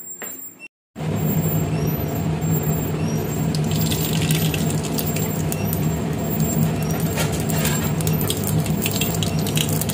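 Cumin seeds crackling in hot oil in a stainless steel kadai: sharp pops start about three seconds in and grow busier as the seeds fry. A steady low hum runs underneath.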